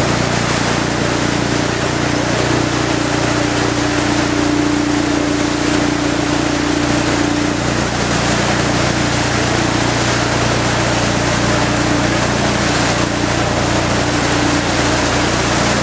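Motorboat engine running at a steady pitch, with water rushing and splashing past the hull.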